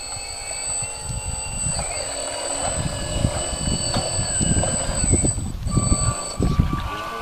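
High, thin whine of a radio-controlled model boat's electric drive, its pitch stepping as the throttle changes and dropping out briefly about five and a half seconds in. Gusts of wind buffet the microphone with a low rumble.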